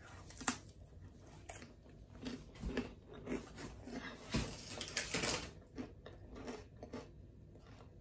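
Close-up chewing of a dry cracker: irregular, soft crunches as it is bitten and chewed.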